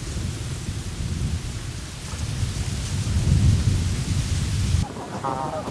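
Rain hissing over a heavy low rumble that swells about three seconds in. The rain cuts off suddenly just before the end, and ducks start quacking.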